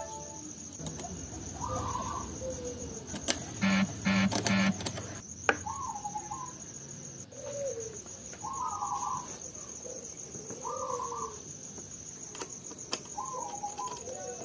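Bird calls: a short warbling call repeated every second or two over a steady high insect-like trill, with three loud harsh calls in quick succession about four seconds in. A few faint sharp clicks sound now and then.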